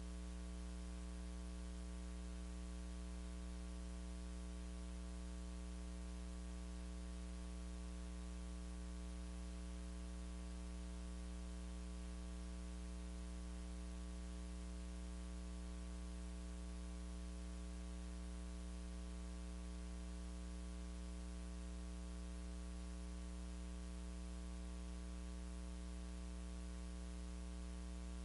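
Steady electrical mains hum with a buzzing stack of overtones and a constant hiss on the audio line, unchanging throughout, with no music or voices.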